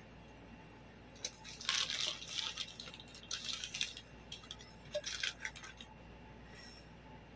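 Clear plastic wrapping crinkling faintly in three short bursts as it is pulled off a microphone.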